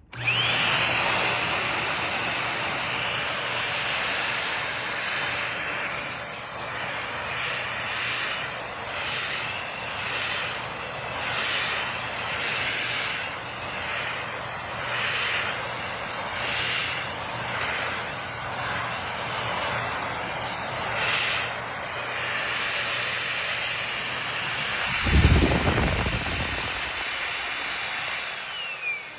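MOOSOO 15 kPa stick vacuum cleaner switching on and running with a steady hissing whir. Its sound swells and fades about every second and a half as it is pushed back and forth. There is a low rumbling bump about 25 seconds in, then the motor is switched off and its whine falls away near the end.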